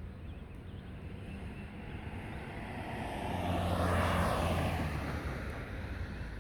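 A motor vehicle passing close by. Its engine hum and road noise swell to a peak about four seconds in, then fade as it moves away.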